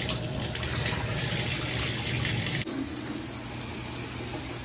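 Water running hard from a bathtub faucet into the tub. About two and a half seconds in the sound changes abruptly to a softer, duller rush, as the flow switches over to the showerhead spraying against the tiled wall.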